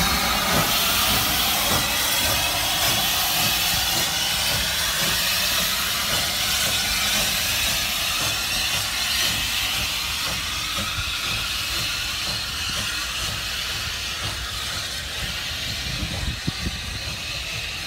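Steam locomotive letting off steam: a loud, steady hiss that slowly fades, over a low rumble, with a few sharp knocks near the end.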